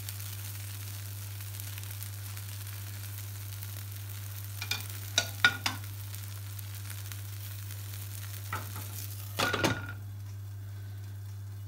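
An omelette sizzling quietly in a frying pan over a steady low hum, with a few sharp taps about halfway through. Near the end a glass pan lid is set down with a clatter and a brief ring, and the sizzle goes muffled under it.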